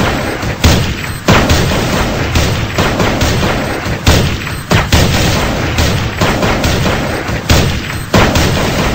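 Loud background music with heavy, punchy drum hits.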